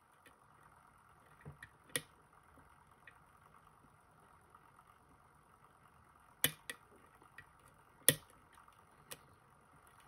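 Small metallic clicks and taps of a lock pick and tension wrench working the pins of a JPM Surf euro cylinder lock, a few at a time: a sharp click about two seconds in, and a cluster from about six and a half to nine seconds, the loudest near eight seconds.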